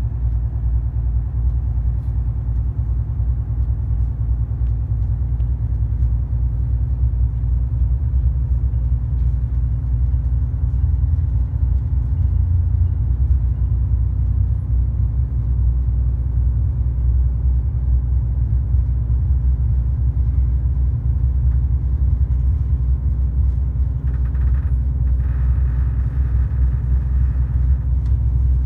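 VIA Rail Budd Rail Diesel Car running, a loud steady low rumble with a faint hum over it; near the end a higher rushing noise joins in for a few seconds.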